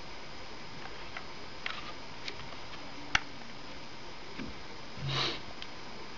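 Plastic CD jewel case being handled: a few faint clicks and one sharp click about three seconds in, over a steady hiss. Near the end comes a short sniff.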